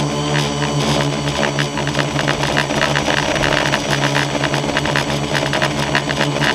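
Multirotor drone's electric motors and propellers humming steadily, heard from the camera on board the drone, with a fluttering buzz over a fixed droning pitch.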